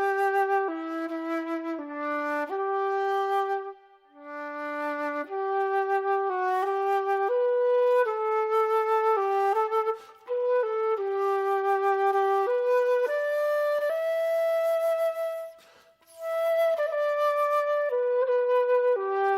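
A flute playing a slow solo melody of held notes that step up and down. Each phrase ends in a short break for breath, about 4, 10 and 16 seconds in.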